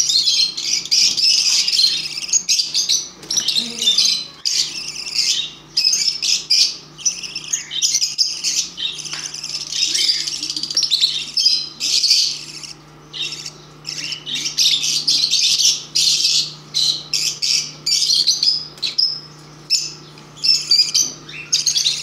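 Budgerigars chirping and squawking in rapid high-pitched bursts, nearly continuous with only brief pauses.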